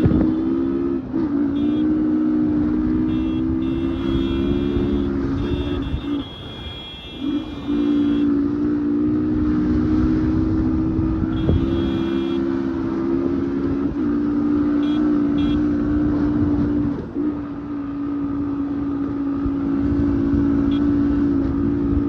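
Yamaha MT-15's 155 cc single-cylinder engine running hard at high, nearly steady revs while riding. It drops off briefly about six seconds in, then climbs straight back, with small dips a few times that sound like gear changes.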